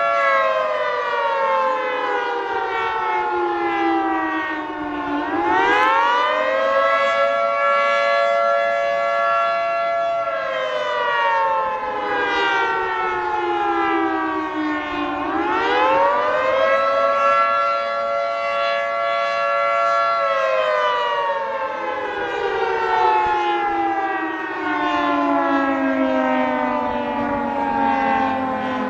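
Federal Signal 2T22 two-tone rotating tornado siren sounding a slow wail, the attack signal: its chord climbs quickly, holds for a few seconds, then slides slowly down, about every ten seconds. A fainter, lower-pitched siren rises and falls underneath it.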